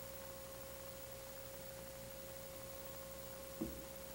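Faint steady electrical hum with a thin steady tone held throughout, and one brief soft knock about three and a half seconds in.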